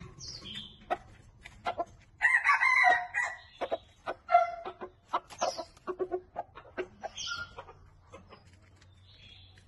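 Red junglefowl F1 rooster crowing once, a short harsh crow about two seconds in, with short clucks and sharp ticks before and after it.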